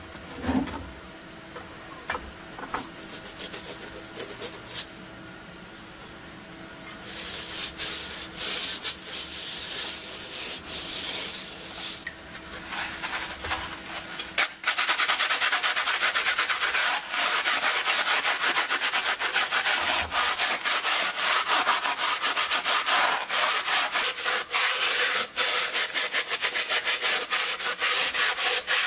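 Liquid sloshes briefly at the start, then a scouring sponge scrubs the wet, rusty steel shell of an M35 helmet in rapid back-and-forth strokes. The scrubbing grows louder and steadier about halfway through.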